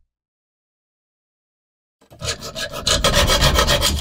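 Hacksaw cutting through a rusty steel knife part clamped in a bench vise: rapid back-and-forth rasping strokes that start about halfway in, swell, then run steady.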